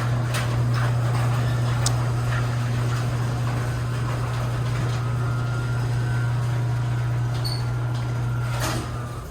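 Craftsman chain-drive garage door opener running steadily as it drives the door closed: a loud, even motor hum with a light chain rattle and no grinding now that the chain has been adjusted. The motor stops just before the end.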